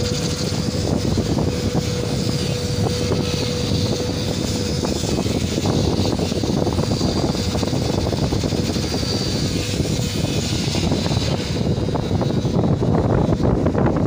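Diesel machinery running steadily: a tracked excavator and a generator set. A faint steady whine fades out about five seconds in, under a rumble of wind on the microphone.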